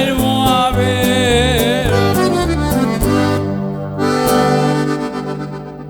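Norteño band playing the closing instrumental of a song: button accordion melody over a pulsing bass line, then a final chord struck about four seconds in that is held and fades away.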